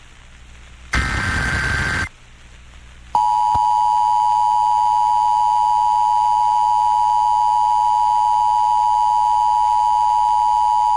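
Emergency Alert System broadcast tones relayed over FM radio. First comes the last of the repeated SAME digital header bursts, a harsh data screech lasting about a second. After a one-second gap, the EAS two-tone attention signal (853 and 960 Hz sounded together) starts about three seconds in and holds steady.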